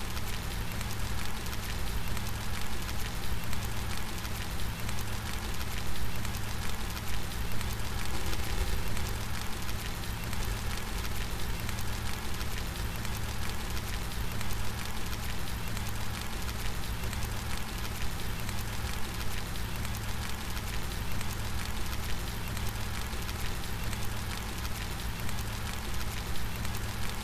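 Steady rain falling, an even hiss of many drops with a low rumble underneath and no thunder.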